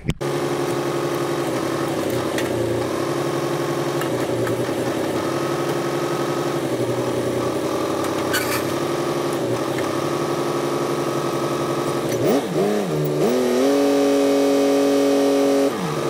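John Deere 2950 tractor's diesel engine running steadily while its hydraulics unfold a hay rake. About twelve seconds in the engine dips and then revs up, holds at a higher speed, and drops back near the end.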